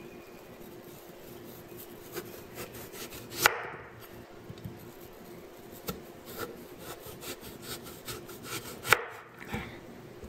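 Cleaver slicing through peeled raw taro root and knocking on a wooden cutting board: a run of small ticks, with two sharp, louder knocks, one about a third of the way in and one near the end.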